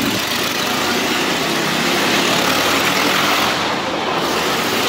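Motorcycle engine running steadily at speed as the bike circles the steep wooden wall of a wall-of-death drum.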